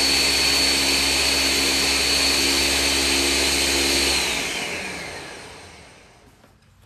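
Ninja 1500-watt blender running at full speed on its crush setting, blending a fruit-and-ice smoothie, with a steady high motor whine. About four seconds in it is switched off and the motor winds down, the whine falling in pitch and fading out over about two seconds.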